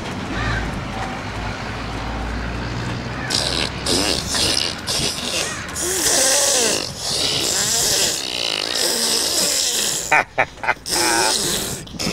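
Baby blowing raspberries and spluttering spit, in repeated breathy bursts mixed with short vocal squeals, starting about three seconds in; a low rumble comes before them.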